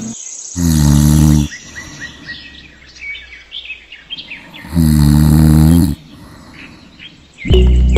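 Cartoon snoring sound effect: two long, low snores about four seconds apart, with birds chirping in the background between them. Another loud sound begins just before the end.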